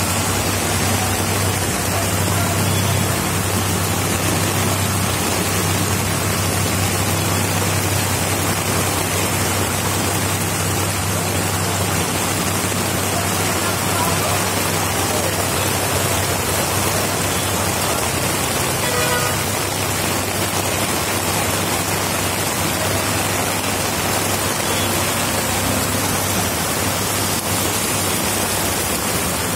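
Steady heavy downpour, an even loud hiss of rain, with a low steady hum underneath.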